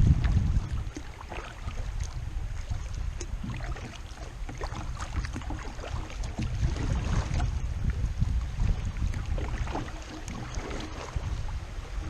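Wind rumbling on the microphone over the splashing of a kayak paddle in river water, with scattered light knocks and drips. The rumble is loudest at the very start and eases after about a second.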